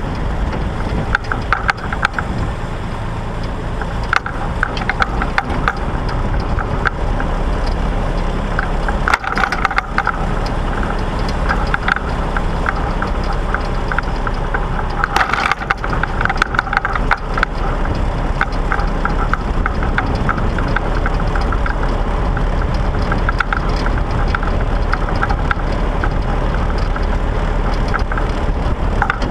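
Massey Ferguson 135 tractor running steadily, with constant rattling and clanking and a couple of louder spells of clatter about nine and fifteen seconds in.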